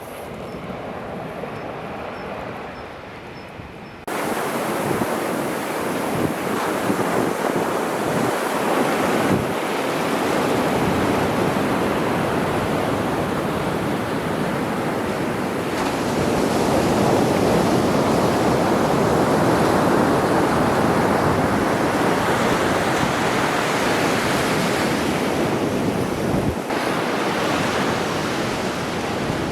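Winter sea waves breaking on the shore in a continuous wash, with wind buffeting the microphone. Quieter for the first few seconds, then suddenly louder about four seconds in.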